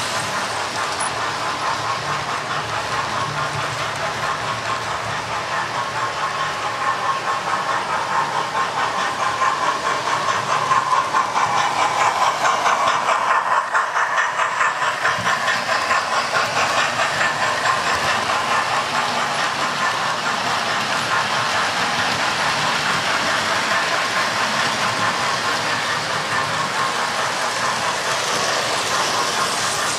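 Model railway trains running on the track: a steady electric motor whine with rapid clicking of wheels over rail joints.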